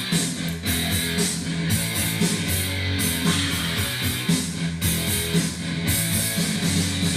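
Rock background music with electric guitar and a steady beat.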